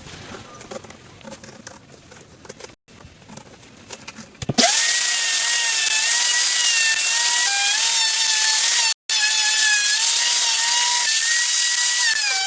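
Quieter crackling and scraping for the first few seconds. Then a power tool starts suddenly and runs under load with a loud, steady, high-pitched whine over a harsh hiss, its pitch wavering slightly, with a brief break about nine seconds in.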